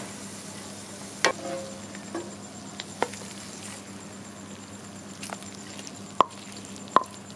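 Wooden spatula tapping and scraping on a ceramic plate while fried eggs are laid out on it: several sharp clicks, the loudest about a second in and twice near the end, over a faint steady background hiss.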